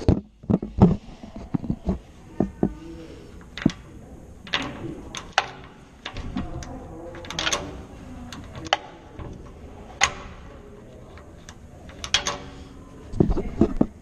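Irregular knocks, taps and clicks of hands handling the metal bottom rail lock of a frameless glass door and its aluminium threshold, with a sharper knock about ten seconds in and a run of knocks near the end.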